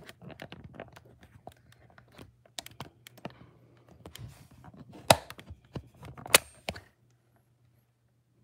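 A quick run of small clicks and taps with two louder sharp knocks about five and six and a half seconds in, then it goes quiet: fingers tapping and handling the phone camera while trying to get it to focus.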